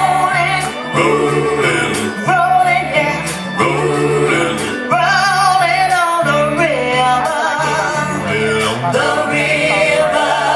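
Recorded song played back loud over a stage sound system, a voice singing over a steady bass-driven beat, for a lip-sync act.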